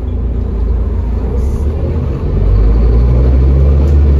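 A Scania CN230UD double-decker bus's diesel engine heard from inside the bus, a low drone that steps up sharply in loudness about two seconds in and stays there. This is a full-throttle kickdown, the bus accelerating hard in a low gear on its ZF Ecolife six-speed automatic.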